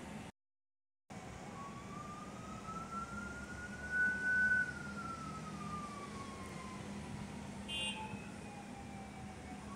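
Emergency vehicle siren in a slow wail, its pitch rising to a peak about four seconds in and then sliding slowly down. Underneath is a steady low hum of heavy road traffic. The sound cuts out completely for under a second near the start.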